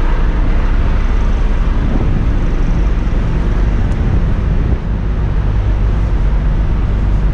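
Heavy diesel engine idling, a loud steady low rumble with a brief dip about five seconds in.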